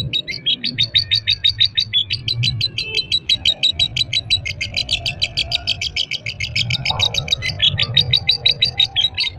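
A caged lovebird chattering in a rapid, unbroken run of high chirps, about eight a second, hardly pausing: the long continuous chatter that lovebird keepers call 'konslet'.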